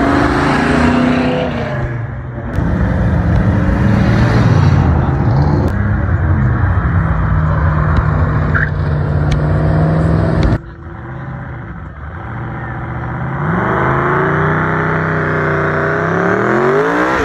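Car engines revving and accelerating hard past the crowd, their pitch rising and falling. About ten seconds in the loudness drops suddenly, then an engine revs up with a steadily rising pitch toward the end.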